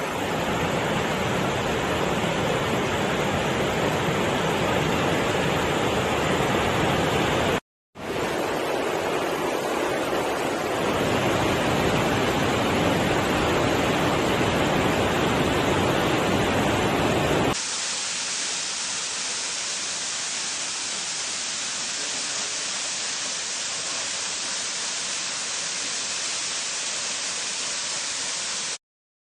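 Rushing water of a waterfall: a steady, full hiss and rumble of falling water, cut off briefly about eight seconds in. About seventeen seconds in it changes to a thinner, higher hiss with much less low rumble.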